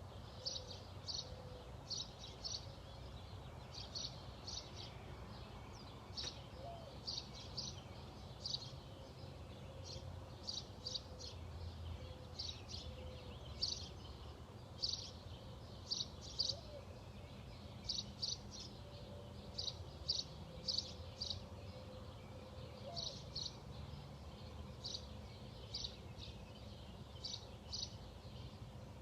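Small birds chirping over and over: short high notes in quick clusters of two to four, about once a second, over a low steady outdoor rumble.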